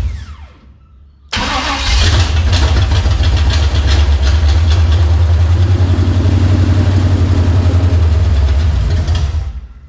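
Chevy 350 small-block V8 running on gas poured into its carburetor. A first run dies away in the opening half second; then it fires again about a second in and runs loud and steady for about eight seconds before dying as the poured fuel runs out.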